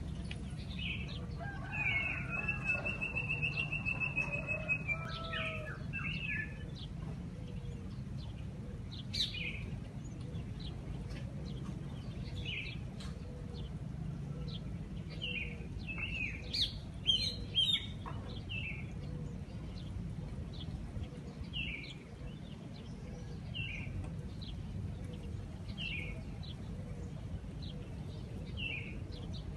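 Small birds chirping at dawn: short chirps repeated about once a second throughout, with a longer trilling call near the start, over a steady low hum from the city.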